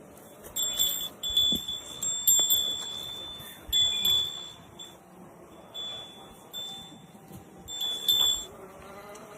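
A high metallic ringing tone in irregular strokes of different lengths, the longest held about two seconds.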